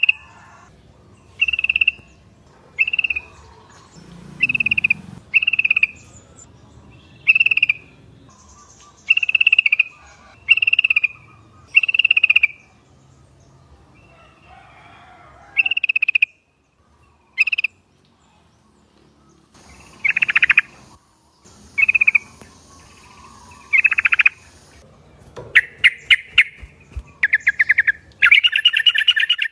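Yellow-vented bulbul (trucuk) calling. A string of short, bright notes comes about once a second or so. Near the end it breaks into a faster chattering trill.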